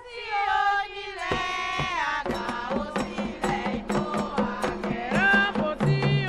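Candomblé chant: a woman sings a solo phrase with gliding, ornamented pitch. About a second in, rhythmic percussion strikes up beneath the singing and the song carries on over it.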